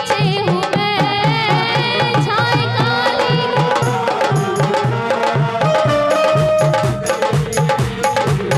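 Bhajan music playing: a steady, repeating drum beat under a wavering melody line.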